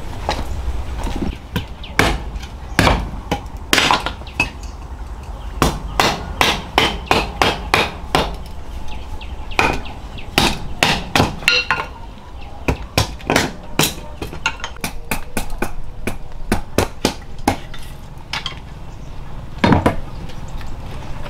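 A long series of sharp knocks or strikes in irregular runs, sometimes two to four a second, over a steady low rumble.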